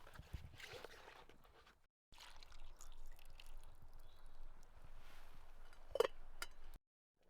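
Goulash being dished up from a pot, liquid sloshing and pouring softly, with one sharp knock about six seconds in; the sound cuts off abruptly twice.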